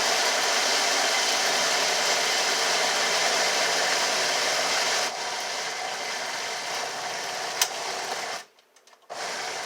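Blender motor running on high, churning banana peels and kitchen scraps in water into a thick slurry. The sound drops a little about five seconds in and stops about a second before the end, after which the blender runs again in one short pulse.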